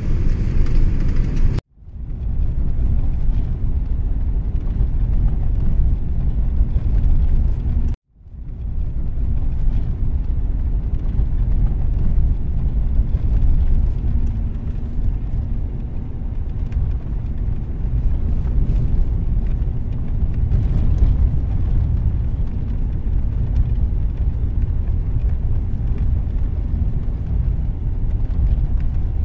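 Steady low rumble of a bus running along a winding hill road, heard from inside the cabin. The sound cuts out suddenly twice, about two seconds in and about eight seconds in, and each time fades back up within a second.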